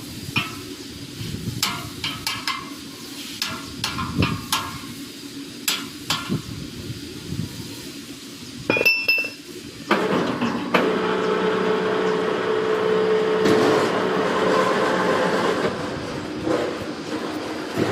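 Wire-production machinery in a factory: scattered metallic clinks and knocks, then a few sharp ringing metal strikes about nine seconds in. From about ten seconds a machine runs with a steady hum, easing off near the end.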